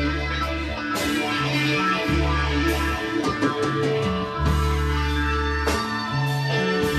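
A rock band playing live: electric guitars over held low bass notes that change every second or so, with drums and cymbal crashes every one to two seconds.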